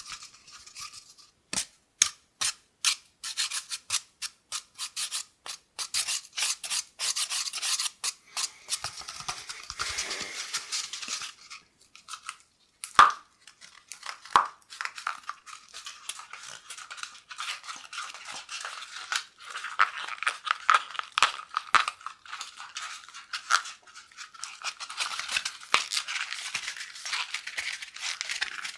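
Cardboard kitchen-roll tube tapped and scratched close to the microphone: quick separate taps at first, then steady scratching and rubbing on the cardboard, with a couple of louder taps about halfway through.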